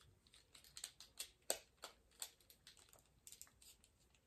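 Faint, irregular clicks and taps of the hard plastic parts of a Transformers Tracks action figure being worked through its transformation, with a sharper click about a second and a half in.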